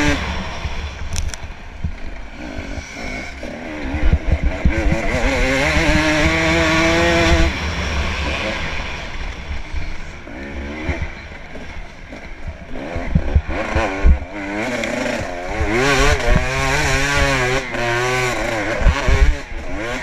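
Off-road dirt bike engine revving up and down under the rider, its pitch climbing for a few seconds and then dropping away as the throttle is rolled off, then rising and falling again. A constant low wind rumble on the helmet-mounted microphone and scattered knocks from the rough track run under it.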